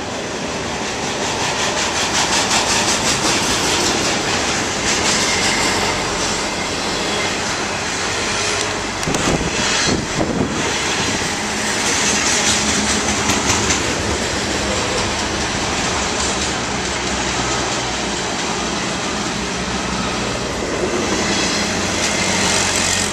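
Intermodal freight train's cars rolling steadily past below, wheels clattering on the rails, with a few sharper knocks about nine to ten seconds in. In the second half a steady low hum joins in, from the motors of the refrigeration units on the reefer trailers.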